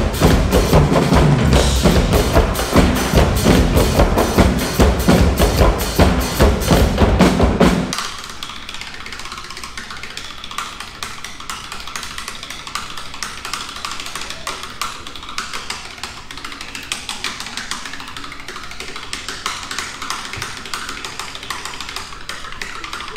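Percussion-driven stage show music: a loud, rhythmic drum piece with heavy bass drum for about eight seconds. Then the bass drops away, leaving quieter, fast, dense percussive clicking.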